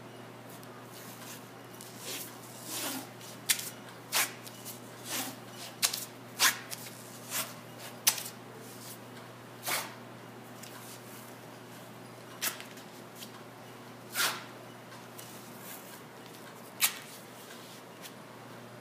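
White athletic tape being pulled off the roll and torn by hand: about a dozen short ripping sounds at irregular intervals, some quick and sharp, a few a little longer as tape is unrolled, over a steady low hum.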